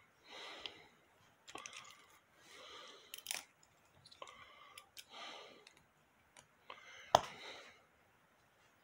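Locking pliers gripping and twisting a pin stuck in a cast lead weight, working it loose: scattered sharp metal clicks and creaks, the loudest about seven seconds in.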